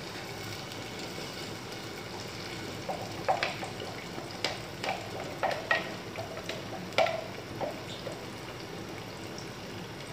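Ful medames (fava beans) with sautéed onion and tomato sizzling in a stainless steel pot on a gas burner as it is stirred. A utensil knocks against the pot several times, irregularly, from about three to eight seconds in.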